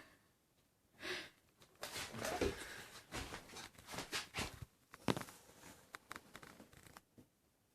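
Irregular scuffling and rustling with a few soft knocks as a kitten tussles with its toy, stopping about seven seconds in.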